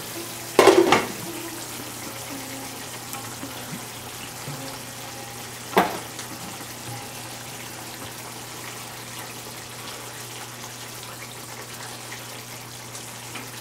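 Curry simmering in a frying pan, a steady bubbling hiss over a low steady hum. A loud clatter about a second in as the pan's glass lid comes off and is set down, and a single sharp knock near six seconds in.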